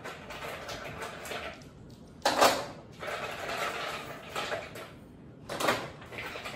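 Cherrystone clams tipped from a bowl into a pan of boiling broth, their shells clattering against the pan and each other in two short bursts, about two seconds in and again near the end. A steady hiss of the boiling broth fills the time between.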